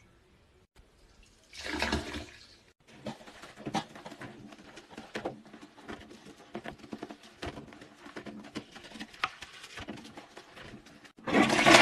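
Water sloshing and splashing in a toilet bowl as a silicone toilet brush scrubs it: many small, irregular splashes and knocks. A short rush of water comes about a second and a half in, and a louder burst of noise just before the end.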